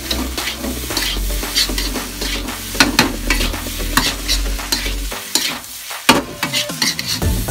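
Metal spatula scraping and tossing fried rice in a metal wok, with the rice sizzling as it fries. The scrapes come about twice a second.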